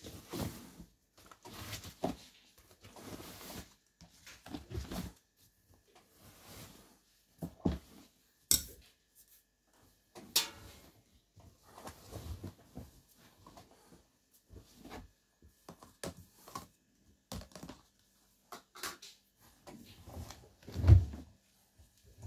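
Laundry being pulled by hand out of a front-loading washing machine's drum: irregular rustling and swishing of fabric, with a few sharp clicks against the drum. A dull thump near the end is the loudest sound.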